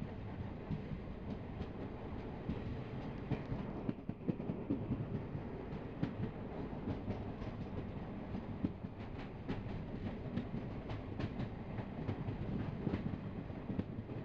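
Passenger train coaches running along the track, heard from the open door of a moving coach: a steady low rumble with irregular sharp clacks of the wheels over rail joints, the clacks coming more often from about halfway through.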